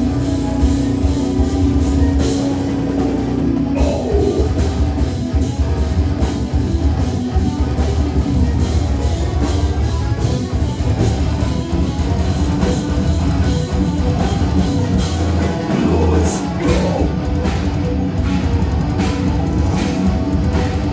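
A rock band playing a heavy song live, the drum kit driving a steady beat under a dense, loud band sound. A held low note rings through the first few seconds.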